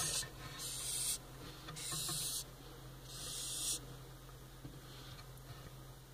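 A wide-horned hissing cockroach hissing in four short, breathy bursts in the first four seconds, each about half a second to a second long. It is an agitated defensive hiss from being disturbed and handled.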